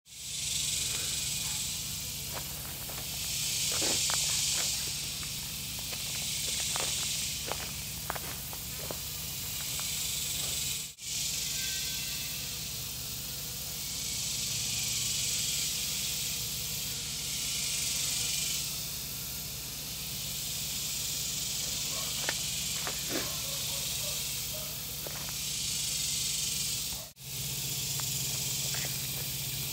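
Outdoor insect chorus: a high, hissing drone that swells and fades every few seconds, over a low steady hum with a few faint ticks. The sound drops out briefly twice, about eleven seconds in and near the end.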